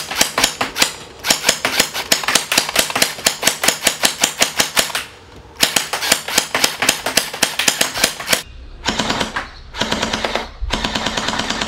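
MP9 electric gel ball blaster firing full-auto, a rapid even rattle of shots. It runs in a long burst, stops briefly about five seconds in, fires another long burst, then shorter bursts near the end.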